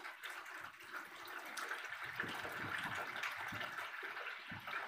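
Salt water poured from a plastic jug into a plastic tub of water, a steady splashing pour.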